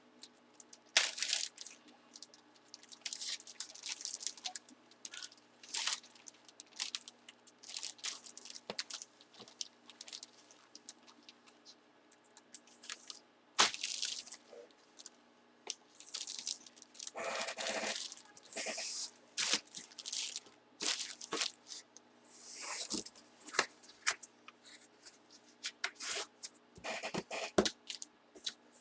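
Plastic card packaging and trading cards being handled: irregular crinkling and rustling, with a single sharp click about halfway through.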